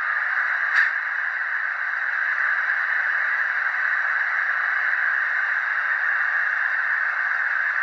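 Zimo sound decoder in a Roco ÖBB 1043 model electric locomotive, playing through its two small speakers: a steady rushing noise with a short click about a second in.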